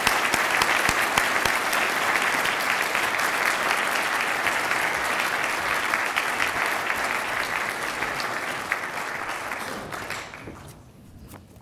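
A large audience applauding, the clapping dying away about ten seconds in.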